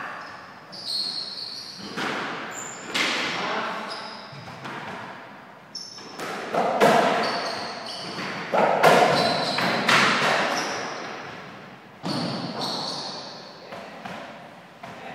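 Softraquet rally: the ball is struck by racquets and hits the court walls, sharp echoing hits about one to two seconds apart, each ringing out in a large hall.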